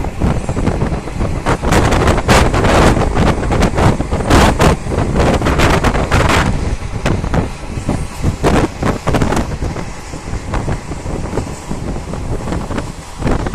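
Train wheels clattering over rail joints with steady running noise, heard from a moving train as a freight train of tank wagons runs on the next track. The clatter is densest in the first half and thins to separate knocks later on.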